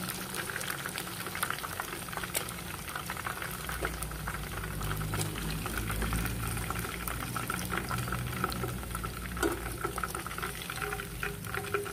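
Hot oil sizzling and bubbling around breaded chicken rolls frying in a pan: a steady hiss dotted with fine crackles. The rolls are done and are being lifted out with tongs.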